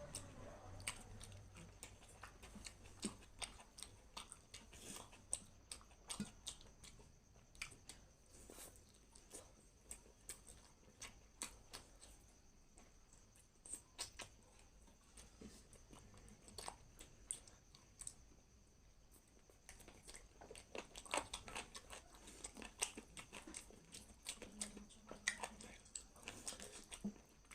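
Close-miked chewing and mouth sounds of a person eating a meal of chicken curry, rice and side dishes: a run of short, irregular clicks and smacks, busier in the last several seconds.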